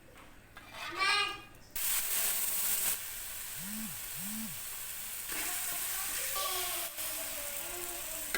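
Food frying in hot oil in a pan, a steady sizzle that starts suddenly about two seconds in.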